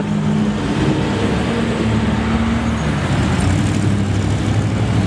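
Rat rod roadster's engine running as the car drives slowly past, a low steady note that shifts a little in pitch, over street traffic.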